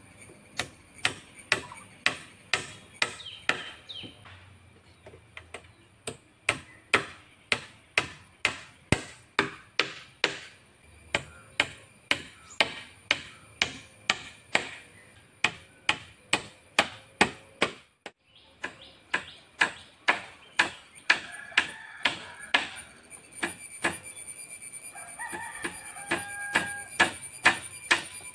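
Claw hammer driving nails into wooden roof-frame poles: sharp strikes, about two a second, in runs with short pauses. A rooster crows near the end.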